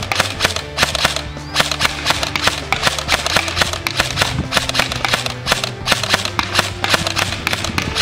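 Airsoft MK18 electric rifle with a G&P gearbox and motor, firing a run of single shots, about three a second at uneven spacing, over background music.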